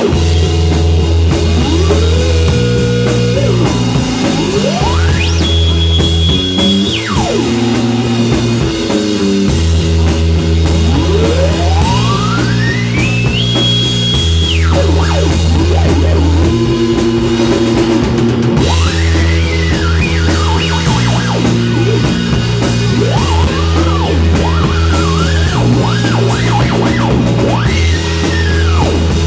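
Rock band playing an instrumental passage live: drum kit, bass and guitar keep a steady repeating groove. Over it a lead line slides up in long glides to high held notes, then bends and wavers through the final third.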